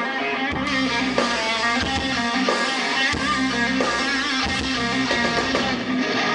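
Live rock band playing an instrumental stretch between vocal lines: electric guitars over bass and a steady drum beat.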